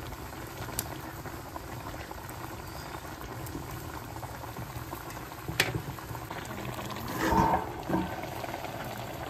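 Pot of fish curry bubbling steadily as it boils. A sharp tap sounds a little over halfway, and a brief louder sound comes near the end.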